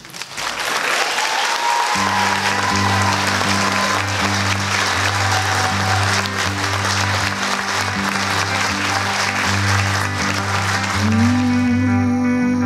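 Wedding guests applauding and cheering the newly pronounced couple's kiss, with music's steady low bass notes coming in about two seconds in. Near the end the clapping fades as a guitar melody takes over.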